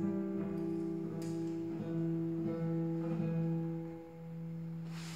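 Classical guitar played fingerstyle in the closing bars of a piece: a few plucked notes ring over held bass tones, then a last chord rings out and fades near the end.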